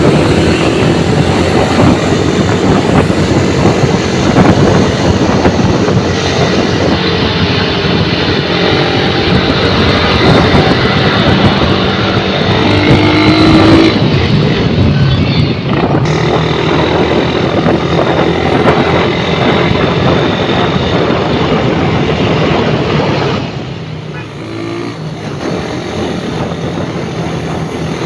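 Motorcycle engine running on the road, with a dense rush of wind and road noise and a few brief rises in engine pitch. The overall level drops noticeably near the end.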